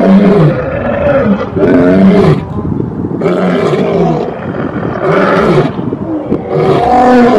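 Male lion roaring: a run of deep roars one after another, each dropping in pitch.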